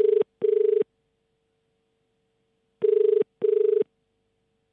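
Telephone ringback tone heard on the calling line: a double ring, two short tones close together, then a pause, then a second double ring. It is the caller's side of a call that has not yet been answered.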